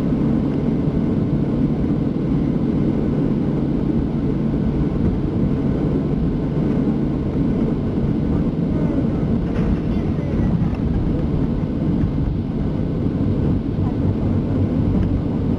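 Steady low rumble inside the cabin of a Boeing 737-700 taxiing, its CFM56-7 engines running at taxi power.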